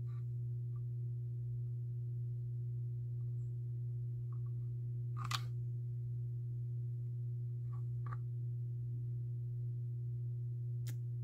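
A steady low electrical hum, with a few light clicks of a metal cuff bracelet being handled; the sharpest click comes about five seconds in.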